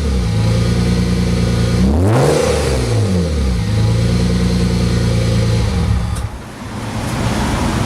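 A 1995 Mercedes-Benz C280's straight-six idling through a C36 AMG exhaust that has only the catalytic converter and AMG resonator fitted and no rear muffler. It is blipped once about two seconds in, the revs rising and falling back to idle. The engine note stops about six seconds in, leaving a steady hiss.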